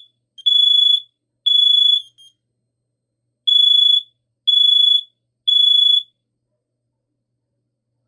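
Two hardwired Kidde KN-COP-IC carbon monoxide alarms beeping in sync in test. Their loud, high-pitched beeps come about one a second: two, a short pause, then three more, and then they stop.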